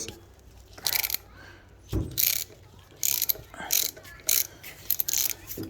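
Hand ratchet fitted with a 6 mm Allen bit clicking in short bursts as it is worked back and forth, loosening a very tight bolt on a motorcycle's front axle. There is a low knock about two seconds in.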